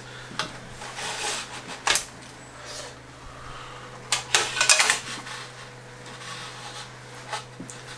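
Scattered light clicks and rattles of a rear brake cable being worked out of a downhill e-bike frame's internal routing, with a brief cluster of taps about four to five seconds in.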